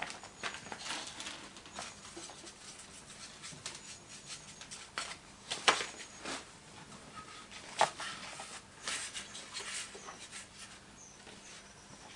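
Hands dusting a 3D-printed plastic pattern with parting powder: soft dabbing and rustling of a cloth powder bag and a plastic squeeze bottle, with scattered light taps of the pattern on the moulding board. Two of the knocks are sharper, about six and eight seconds in.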